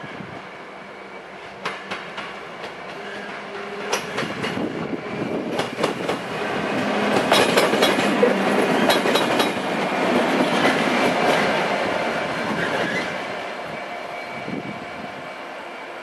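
Class 66 diesel-electric locomotive (EMD two-stroke V12) running light past at speed. The engine and wheel noise swells to a peak about halfway through and then fades as it moves away. Sharp clicks of the wheels over rail joints come as it approaches.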